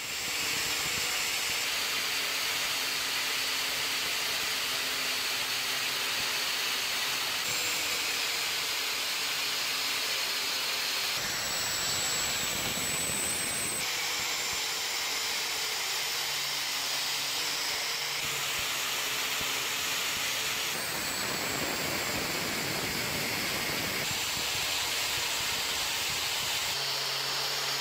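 Angle grinder fitted with a wire cup brush, running steadily against a rusty steel hammer head: a steady high-pitched whine over a scratchy hiss as the bristles strip the rust. The tone shifts several times as the brush moves to different parts of the head.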